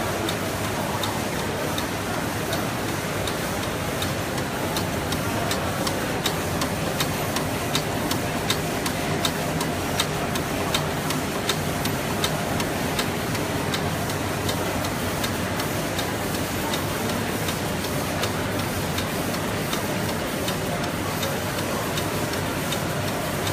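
Automatic woven-label cutting and folding machine running, its cutting and folding stroke clicking at a steady rhythm over a continuous mechanical noise.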